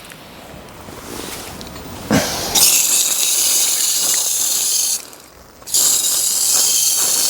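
Garden hose spraying water through an air-conditioner filter mesh, a loud hiss in two long bursts with a short break between them, starting a little after two seconds in.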